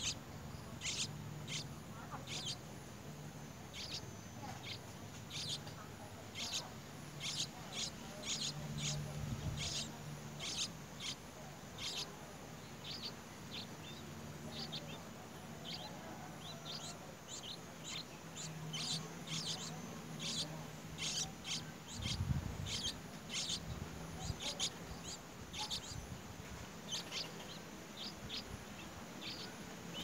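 Small birds chirping: short, high chirps repeated about once or twice a second, with a low hum coming and going underneath.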